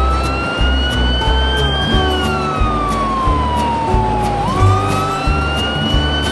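Fire truck siren wailing, rising slowly then falling, about twice, over background music with a steady beat.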